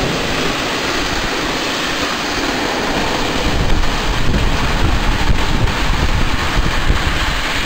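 Freight train of container wagons rolling past on the rails and away, a steady loud rushing noise with a few faint knocks, and wind buffeting the microphone.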